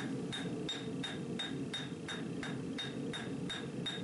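Hand hammer striking red-hot steel on an anvil in a steady rhythm of about three blows a second, each blow with a short metallic ping: the forge-welded farrier's-rasp tomahawk head being flattened.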